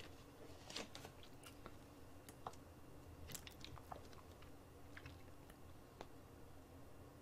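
Near silence with faint, scattered clicks and crinkles: a plastic water bottle being handled and drunk from.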